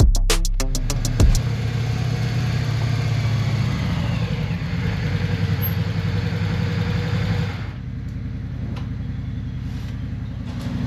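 Background music stops about a second in, then a Yamaha Virago V-twin motorcycle engine idles steadily, a little quieter for the last few seconds.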